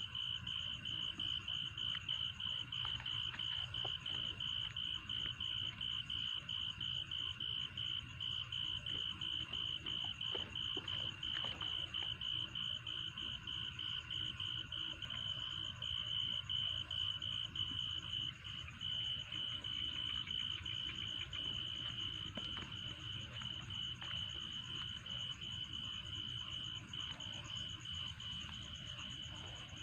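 A cricket chirping steadily at night: a high note in quick, even pulses that goes on without a break.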